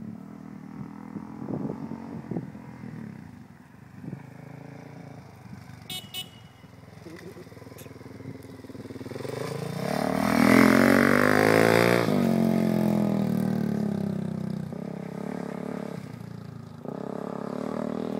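Off-road dirt bike engines. A bike runs at a distance, then one rides close past under hard throttle, its pitch climbing and loudest about ten to twelve seconds in. The sound then cuts off abruptly and an engine runs on more quietly.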